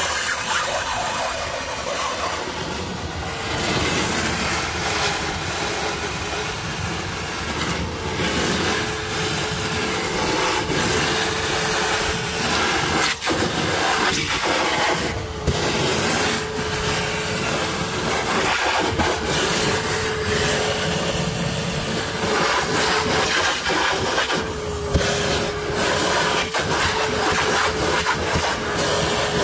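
Small Bauer shop vac, filter removed, running steadily with a steady hum as its hose sucks up leftover water and air from the floor of a drained hot tub. A few sharp clicks come through now and then.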